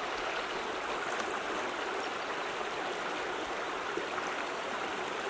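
A small creek flowing over rocks, a steady, even rush of running water.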